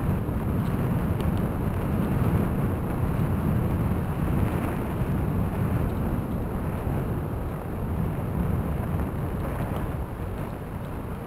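Wind buffeting the microphone of a bike-mounted camera while riding, a steady low rumble, with the bicycle's tyres rolling over a leaf-covered crushed-stone path and a few faint ticks in the first couple of seconds.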